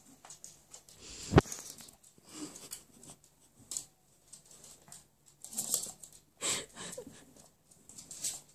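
A Havanese puppy's paws pattering and scrabbling irregularly on a wood-look floor, with one sharp knock about a second and a half in.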